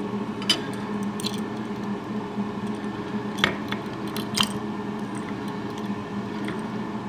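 A few light clicks and taps of small faucet parts being handled while the rubber seat and spring are fitted into the faucet's valve body, over a steady low hum.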